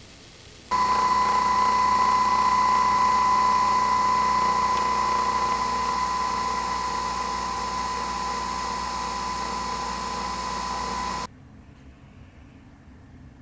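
A small electric motor appliance running at a steady speed with a high, constant whine. It switches on sharply and cuts off suddenly after about ten seconds.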